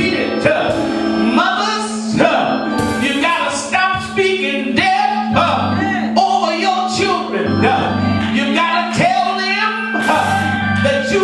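Live gospel music: singing over instrumental backing with a steady beat.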